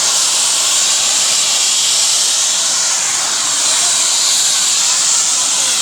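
A helicopter's turbine engine running close by: a loud, steady rushing hiss that stays even throughout.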